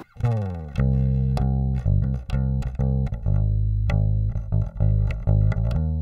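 Warwick Rockbass Corvette Basic short-scale four-string electric bass played fingerstyle through its neck pickup alone: a run of plucked notes, each ringing on until the next.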